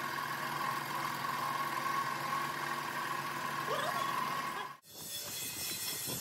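Steady mechanical hum of a running machine, with a few held tones, cutting off abruptly about three-quarters through. After it comes a noisier, crinkly rustle of a plastic bag being handled.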